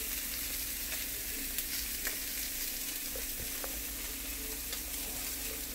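Onion and garlic sizzling steadily in oil in a hot cast iron skillet, with a few small pops.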